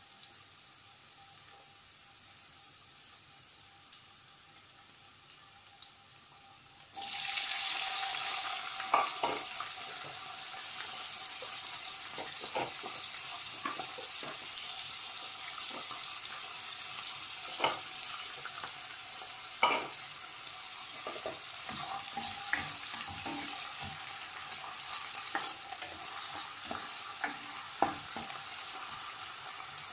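Garlic frying in oil in a pot with a faint sizzle. About seven seconds in, chopped onion goes into the hot oil and the sizzling jumps suddenly loud, then carries on steadily with scattered clicks and knocks from stirring in the pot.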